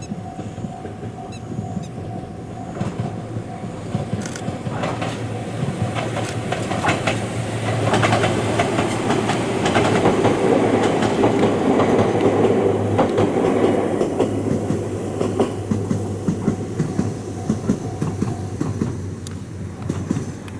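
Ohmi Railway electric train set 103F approaching, passing close by about halfway through, then moving away. Its rumble swells and fades, with the wheels clicking over the rail joints.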